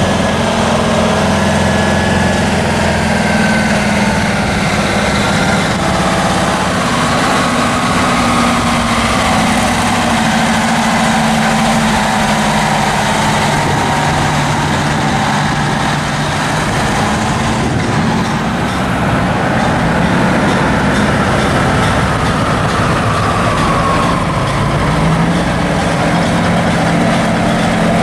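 Heavy diesel semi-truck engines running at low speed as a line of antique tractor-trailers rolls slowly past, a deep, steady engine drone. The engine pitch lifts briefly near the end, and a faint whine rises and falls over the top.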